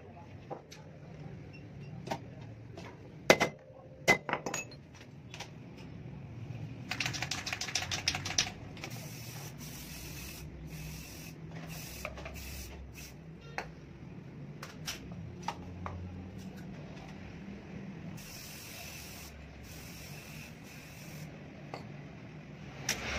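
A few sharp metal taps, then an aerosol spray can hissing in bursts as it paints a clutch disc. The longest bursts come about seven seconds in and again from about eighteen to twenty seconds. The loudest sound is a single tap about three seconds in.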